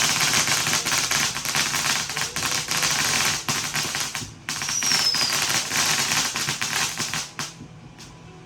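Fireworks crackling: a dense, rapid run of sharp pops, with a short falling whistle about five seconds in, stopping about seven and a half seconds in.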